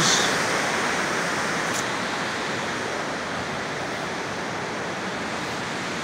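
Water pouring over a dam spillway: a steady rushing noise that eases a little over the first few seconds.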